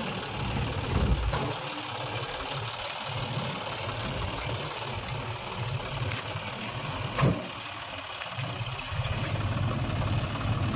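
Heavy-machinery diesel engine running with an even low throb, with one sharp knock about seven seconds in.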